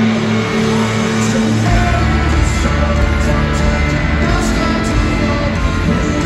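Live rock band playing through a stadium sound system, with electric guitars, heard from the crowd. The low end comes in much heavier about two seconds in.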